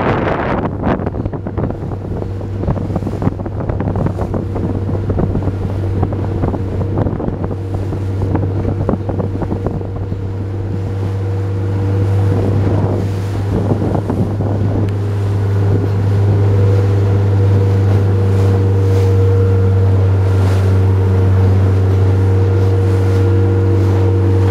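Motorboat engine running under way, rising in speed and loudness about twelve to fifteen seconds in and then holding steady. Wind buffets the microphone, and choppy water splashes against the hull.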